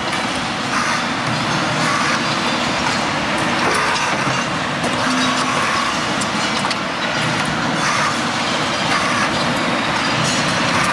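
Automated brake shoe welding machine running: a steady even machine noise with occasional faint ticks.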